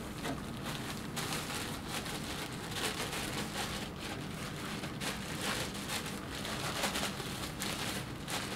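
Ice cubes and salt being mixed in a large plastic zip-top bag: an irregular rattling crackle of ice with crinkling plastic that goes on without a break.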